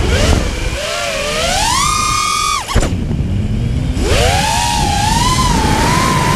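A 5-inch FPV quadcopter's four brushless motors (Armattan Titan 2306, 2450kv) whining, rising and falling in pitch with the throttle. About two and a half seconds in, the whine cuts off suddenly with a sharp knock from the crash, leaving about a second of rushing air. The motors then spool back up to a steady high whine as the quad is saved.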